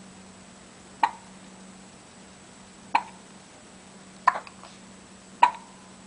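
Twins hiccuping in their sleep: short, sharp hiccups at uneven gaps of one to two seconds, one of them a quick double.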